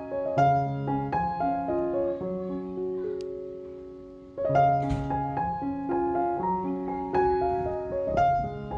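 Background piano music: a slow melody of single notes and chords, fading a little before a new phrase comes in about halfway through.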